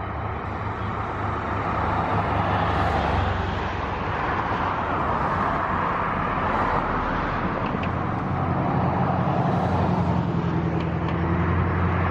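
An engine running steadily, a low hum under a continuous rushing noise.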